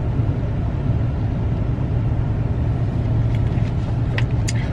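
Steady low rumble of a car's engine and road noise heard from inside the cabin while driving, with a few faint clicks near the end.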